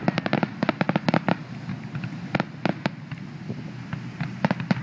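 Fireworks going off: a quick run of sharp bangs and pops in the first second or so, then scattered single bangs about two and a half seconds in and again near the end.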